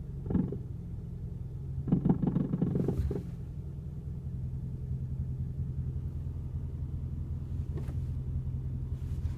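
Scion iQ engine running with a steady low rumble, with a short louder burst of noise about half a second in and a longer one from about two to three seconds.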